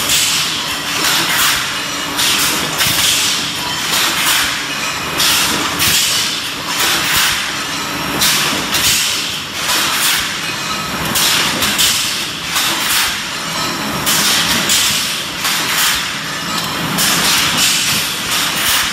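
Automatic cup packaging and counting machine running: a steady mechanical clatter with a hiss that swells and fades roughly once a second as it cycles.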